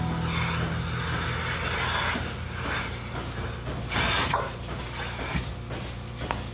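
Milking machine teat cups being attached to a cow's teats, hissing in short bursts as the vacuum draws in air, over the steady low hum of the milking system.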